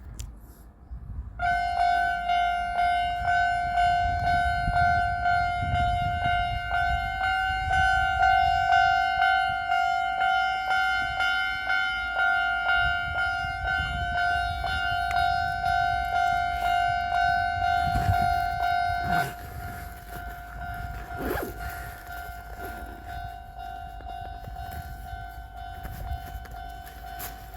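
Japanese railway level crossing warning alarm starting to ring about a second and a half in, a steady two-note bell tone with a regular beat. About 19 seconds in it drops to a much quieter level and keeps ringing, as the crossing alarm turns its volume down while the barriers stay closed.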